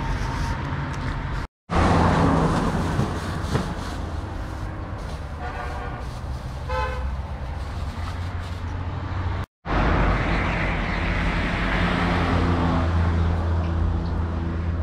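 Outdoor street ambience with a steady low traffic rumble, and a vehicle horn sounding for about two seconds around the middle. The sound cuts out completely for a moment twice.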